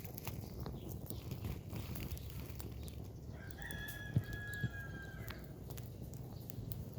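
Wood fire crackling, with scattered sharp pops over a low steady rumble. Partway through, a rooster crows once, a long even call of about two seconds. Two dull knocks come during the crow.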